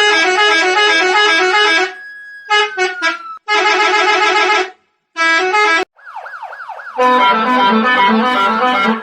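Edited remix of a multi-note musical bus horn and a police siren. The horn plays a quick run of notes in blocks, chopped into stutters and restarted. A falling siren wail comes about two seconds in, and a fast siren yelp, about four sweeps a second, shortly before the last loud stretch of horn notes.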